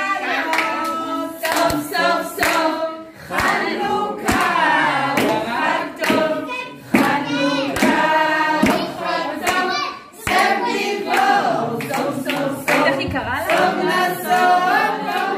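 A group of adults and children singing a song together, clapping their hands along with it.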